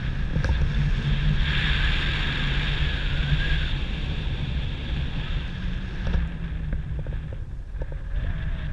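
Wind buffeting the microphone during a paragliding flight: a steady low rumble with a rushing hiss that swells for about two seconds, starting about a second and a half in.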